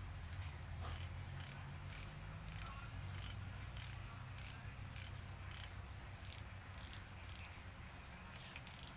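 Carbotech fishing reel's mechanism clicking as it is worked by hand: a run of sharp ratchet-like clicks, about two a second and unevenly spaced.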